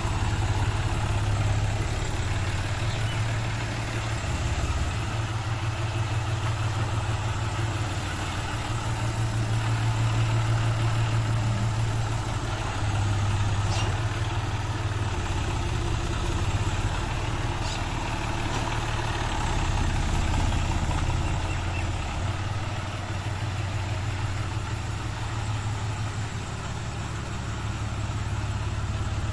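John Deere 5310 tractor's three-cylinder diesel engine running at low revs as the tractor is driven slowly and maneuvered. The engine note swells and eases a little as the driver works the throttle.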